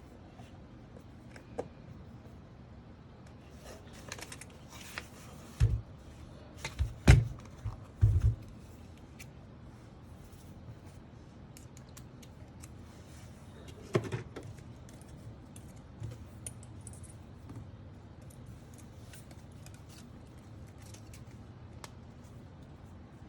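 Small hard parts of a mechanical keyboard being handled: scattered light clicks and taps, with a cluster of sharper knocks about six to eight seconds in and another about fourteen seconds in.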